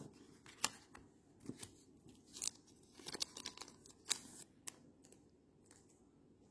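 Old baseball trading cards being handled and peeled apart, a scatter of short scrapes and crackles with a sharper snap about four seconds in, then quiet. The cards are stuck together, their printed surfaces bonded with age.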